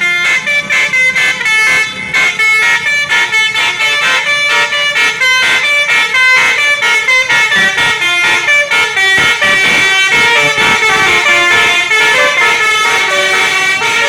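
Bus telolet horn of the Basuri type, a multi-tone musical air horn, playing a quick melody of many short notes, loud and without a break.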